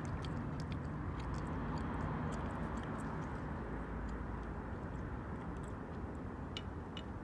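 Steady low background rumble with faint, irregular small clicks and crackles scattered through it.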